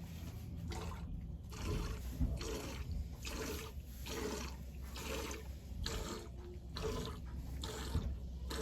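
Water splashing and sloshing in a regular rhythm, about one or two surges a second.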